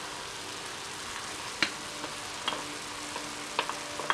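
Vegetable and chicken filling with rice vermicelli frying in a pan, a steady sizzle. A few light clicks of a wooden spatula against a bowl and the pan as olives are scraped in.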